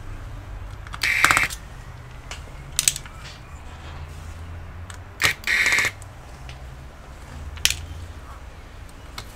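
Electric screwdriver whirring in short bursts of about half a second, once about a second in and again about five seconds in, as small screws are undone on a laptop motherboard. Sharp clicks come near three seconds and near the end.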